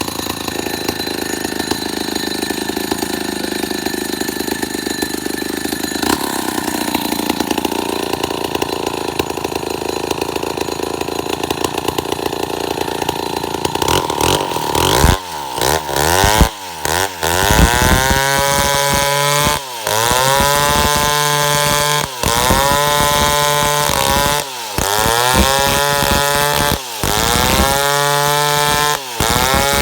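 Stihl chainsaw running at high revs, sawing eucalyptus wood. About halfway through, the engine note starts dipping sharply and climbing back every couple of seconds.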